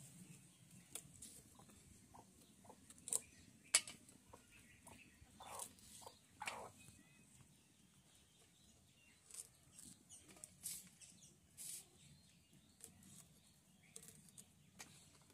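Fresh green bean pods being snapped and split by hand: scattered small, sharp snaps and clicks at irregular moments, the loudest two about three and four seconds in, with soft rustling between.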